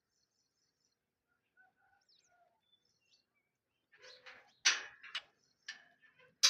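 Faint bird chirps, then from about four seconds in a run of loud, sharp clattering knocks, several to a second.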